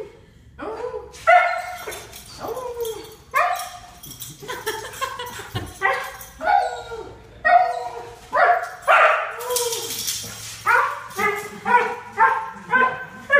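A dog giving repeated high-pitched cries and yelps, about one or two a second, in an excited greeting of its returning owner.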